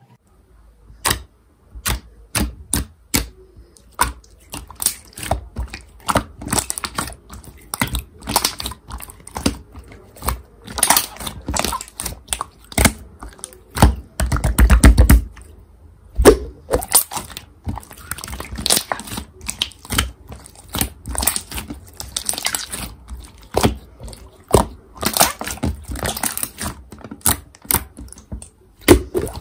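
Glossy glitter slime being pressed and kneaded by hand, giving a run of irregular sharp, wet clicks and pops, with a louder, deeper squish about halfway through.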